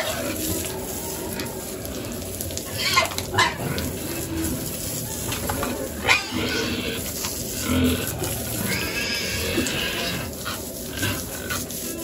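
Young pigs grunting with a few sharp squeals and one longer squeal near the end, over the steady hiss of a hose spraying water on them.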